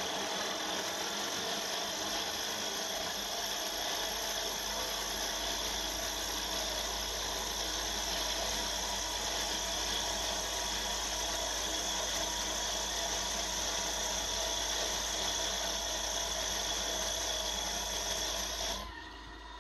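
Mini mill drilling into cast iron with an indexable-insert U-drill, a steady cutting noise over the spindle, stopping shortly before the end as the 20 mm depth is reached.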